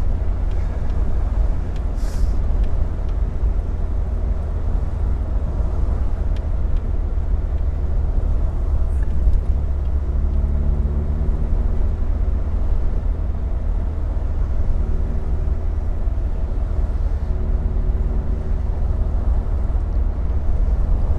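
Open-top car driving at road speed with the top down: a heavy low rumble of wind buffeting the microphone over a steady engine hum. The engine note comes through more clearly about halfway through and again near the end.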